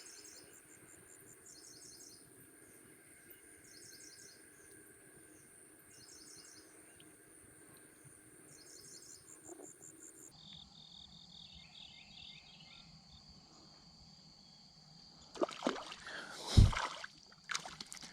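Insects chirping: a steady high buzz with a pulsed chirp repeating about once a second. Near the end come several louder knocks and scuffles, the loudest a single thump.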